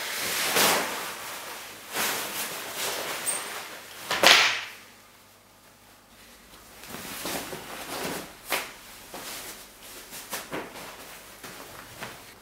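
Clothing rustling and swishing as a jacket is pulled off, with one sharp swish about four seconds in. Then the softer rustle of a shirt being unbuttoned and taken off.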